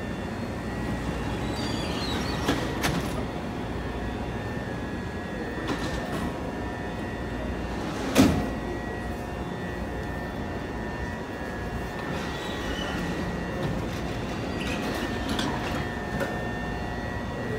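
CTA Blue Line rapid-transit railcar standing in a subway station, its onboard equipment giving a steady hum with a held high whine. A loud single thump about eight seconds in, as the car's sliding doors close, with a few lighter knocks earlier.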